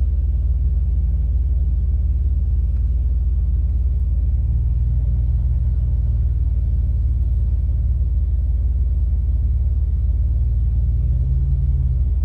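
Off-road 4x4's engine running at low revs as it crawls along the trail: a steady low rumble whose pitch shifts slightly now and then.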